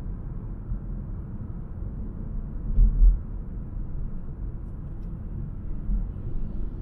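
Car driving on a city road: a steady low rumble of engine and tyres, with a brief louder low thump about three seconds in.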